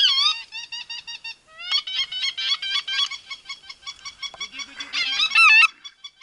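Goose calls blown to lure approaching geese: a fast run of short honks and clucks, with a few louder, longer honks near the end.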